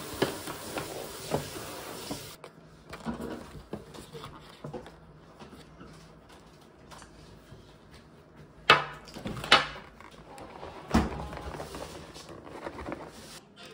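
A steady hiss for about two seconds, then scattered knocks and clatters of objects being handled, the loudest about nine and eleven seconds in.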